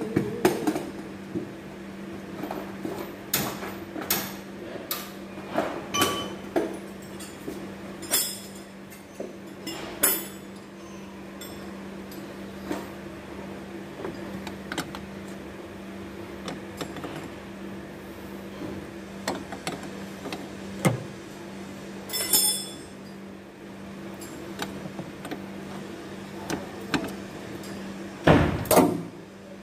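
Scattered metal clinks and knocks of hand tools on a car's air-conditioning pipe fittings, with a louder clatter near the end as a spanner goes onto the pipe nut. A steady low hum runs underneath.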